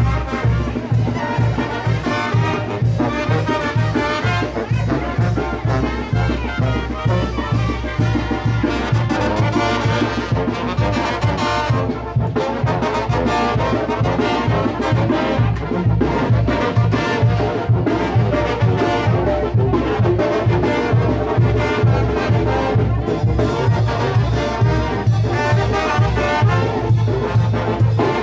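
Brass band playing a lively chinelo dance tune: trumpets and trombones over a steady, driving beat with a heavy bass.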